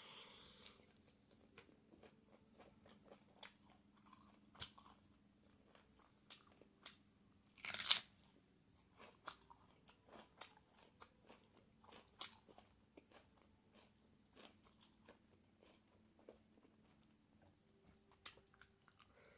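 A person chewing and biting food close to the microphone: many short, irregular crunchy and wet clicks, with one louder crunch about eight seconds in.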